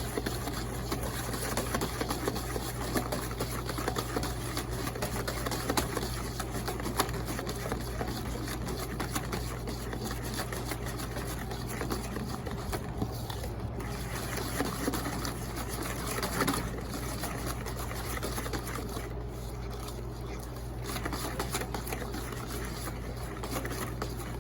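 Wire whisk beating a thick mayonnaise-based white sauce in a bowl: continuous rapid clicking and slapping of the whisk against the bowl as the sauce is whisked smooth.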